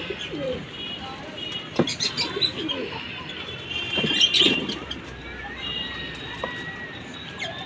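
Domestic pigeons cooing in low, wavering calls, with high chirping from other birds over them and a few sharp clicks. The loudest burst of cooing and chirping comes about four seconds in, and a long, wavering higher call runs through the second half.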